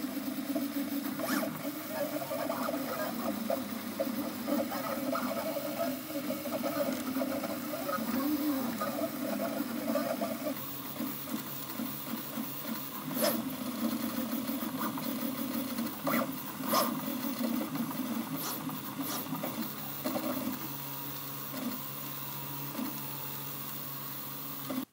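Prusa MK3S 3D printer running a print: its stepper motors whir and whine in shifting tones as the print head and bed move. A few sharp clicks sound now and then.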